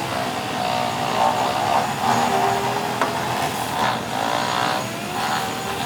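An engine running with a steady hum that wavers in pitch, and a single sharp click about three seconds in.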